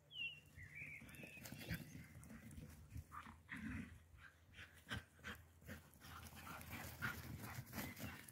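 Galgos (Spanish greyhounds) galloping on grass: irregular thuds of their paws hitting the turf.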